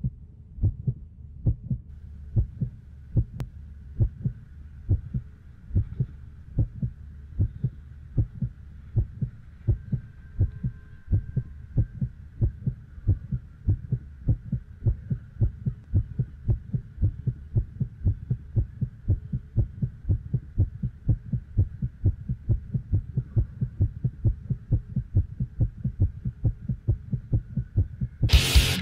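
Heartbeat sound effect: steady, evenly spaced low thumps under a faint steady hum, ending in a loud burst near the end.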